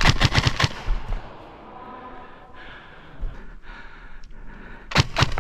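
Airsoft rifle firing a quick burst of about six shots, then a short burst of three shots near the end, with rustling movement in between.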